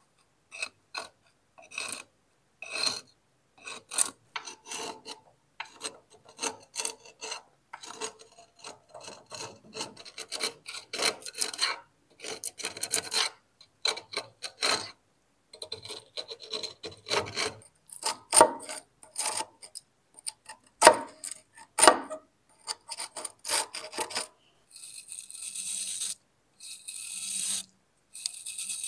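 Hand scraping strokes on rusty metal: many short, irregular rasping strokes, thickening in the middle, with a few longer hissing passes near the end.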